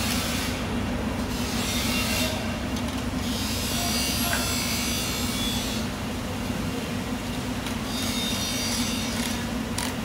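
Knife scraping along a bluefin tuna fillet in stretches of rasping noise, over a steady low machine hum.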